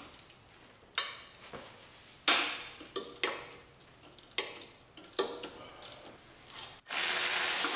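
Scattered clicks and clinks of a socket ratchet working on the AC compressor bolts. Near the end a Milwaukee cordless ratchet's motor runs steadily for about two seconds, spinning a bolt out.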